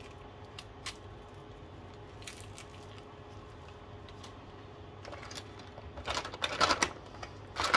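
A few faint clicks of a paint marker being handled, then, from about five seconds in, Posca paint marker pens clattering against one another and their plastic storage box as a hand rummages through them, loudest near the end.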